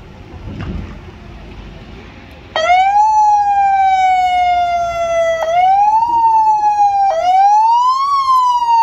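Police pickup's electronic siren, switching on suddenly a few seconds in: each time its pitch rises briefly and then falls slowly, restarting twice more. Before it, only faint street sound.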